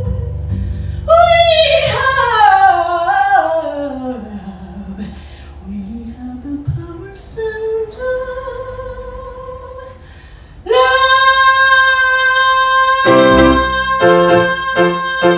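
Female voice singing a wordless vocal run, with piano accompaniment. The line slides down in pitch and back up, and a strong high note is held from about eleven seconds in, under repeated piano chords.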